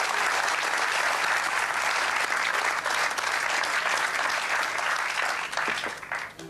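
Studio audience applauding: dense, steady clapping that fades away near the end.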